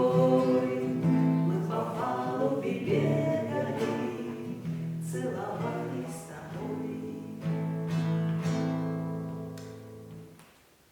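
Two voices singing together in a slow bard-style song with acoustic guitar accompaniment, holding long notes. The song dies away to quiet near the end.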